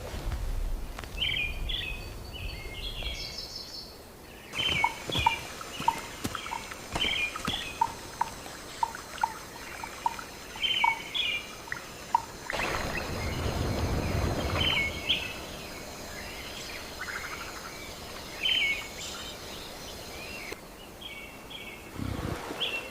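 Rainforest ambience of small birds chirping in short repeated phrases over a steady high whine. For several seconds a run of evenly spaced short notes sounds about twice a second, and a low rumble swells for a couple of seconds past the middle.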